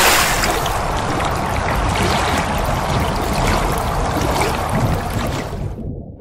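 Rushing, splashing water sound effect accompanying an intro logo animation. The rush runs on steadily, then its upper part cuts off suddenly shortly before the end and the rest dies away.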